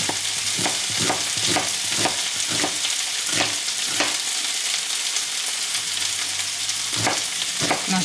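Kitchen knife chopping an onion on a plastic cutting board, about two strokes a second, over the steady sizzle of potatoes and onion frying in a pan.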